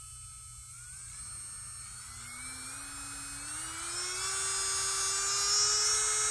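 MelodySusie 30,000 RPM rechargeable nail drill motor spinning up from a stop, its whine climbing in pitch in small steps and growing louder as the speed dial is turned up gradually.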